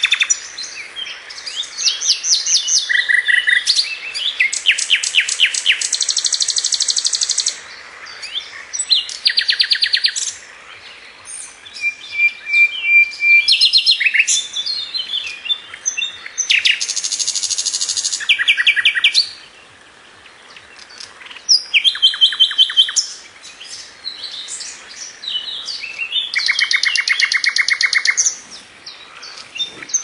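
Songbird song in loud, varied phrases of rapid repeated notes and trills, each a second or more long, separated by short pauses. A steady hiss runs underneath.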